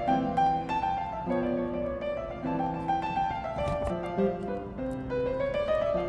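Background music led by a piano or keyboard, playing a melody over sustained chords, with a few light clicks.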